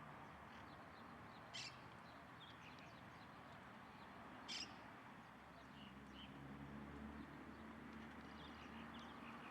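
Faint wild bird calls: two short, harsh calls about three seconds apart, with scattered high chirps between them, over a low hum that grows a little louder in the second half.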